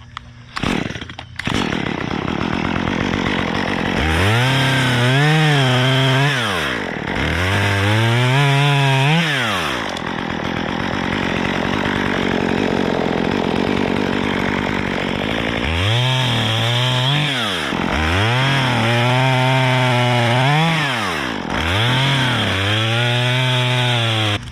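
Gas chainsaw running: its engine is revved up and down again and again, held steadier at high speed for several seconds in the middle, and cut off near the end.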